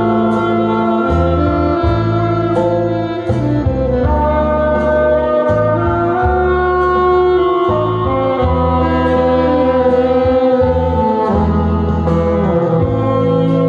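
Saxophone playing a melody with other wind instruments over a backing track with a bass line and a steady beat.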